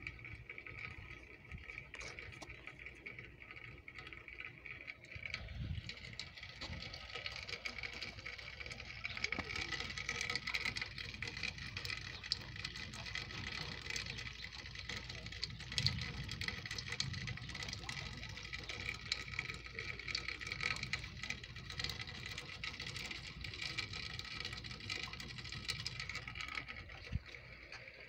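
Steady rain pattering on grass and concrete, a dense spray of fine drop ticks that grows louder after about six seconds and eases near the end.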